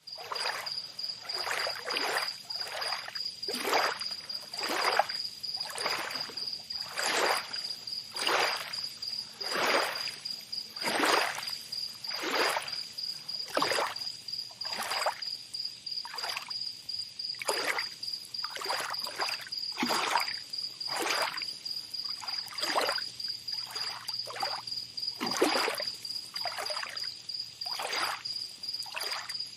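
Tropical beach ambience: small water splashes or laps about once a second, uneven, over a continuous high-pitched insect trill.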